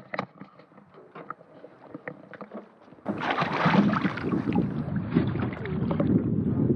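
Water sloshing and splashing against the side of an aluminium boat, with a large alligator gar roped at the surface alongside. A few light knocks and clicks come first, then from about three seconds in a loud, steady rush of splashing water.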